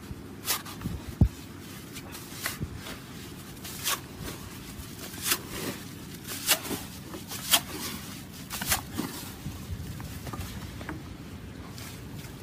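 Steel shovel blade driven into wet, packed beach sand, digging down after a razor clam: about eight sharp scraping strokes, one every second or so, that stop about nine seconds in, over a steady low hiss.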